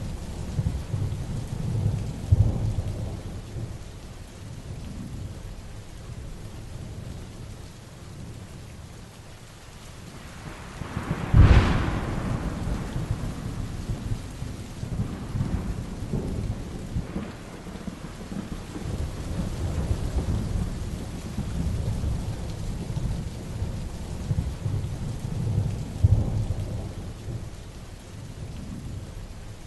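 Heavy rain falling steadily with thunder rumbling low and swelling at times. A sharp, close thunderclap cracks about a third of the way in and rolls away in rumbles.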